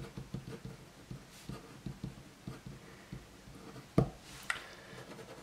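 Pen writing on a sheet of paper on a table: a run of small scratches and taps from the pen strokes, with one sharper knock about four seconds in.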